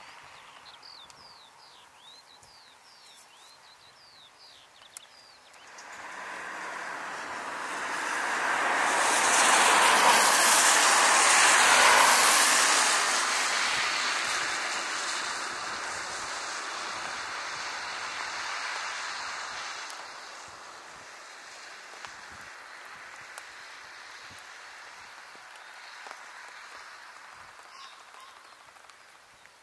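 Large aircraft's engines on the airfield, a rushing noise that swells to a peak about ten seconds in and slowly fades. Birds chirp at the start, before the aircraft noise builds.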